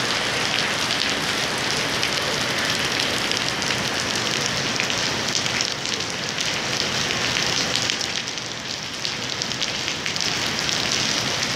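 Heavy rain pouring steadily onto a wet tiled terrace floor: a dense, even hiss made up of countless small drop impacts, easing slightly about two-thirds of the way through.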